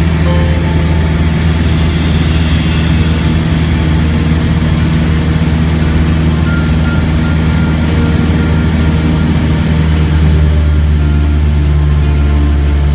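Light aircraft's piston engine and propeller droning steadily in flight, heard from inside the cabin. The low drone grows louder about ten seconds in.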